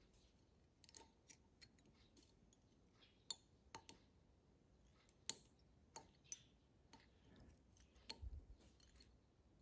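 Faint, scattered clicks and light rustling as fingers handle the thread and fibres of a fly tied on a hook in a fly-tying vise, with a dull low thump about eight seconds in.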